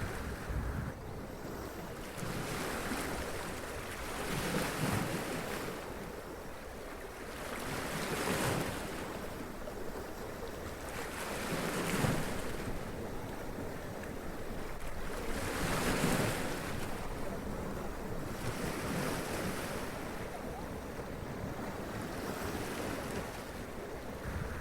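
Sea waves running up onto rocks and splashing, each wave surging in and washing back, with several surges about four seconds apart.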